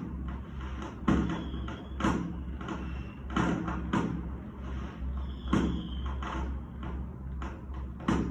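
Fireworks going off: a string of sharp pops and bangs about one a second, with short whistling tones between some of them.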